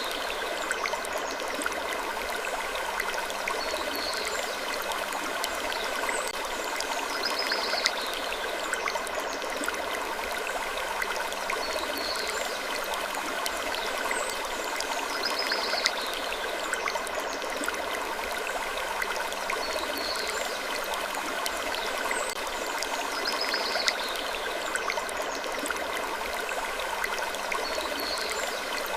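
Looped sleep ambience: slow wood creaks, each a short falling squeak, repeating about every four seconds over a steady rushing noise bed.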